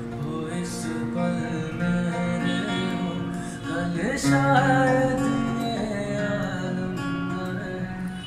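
Acoustic guitar strummed in slow chords, with a man singing a ballad melody over it.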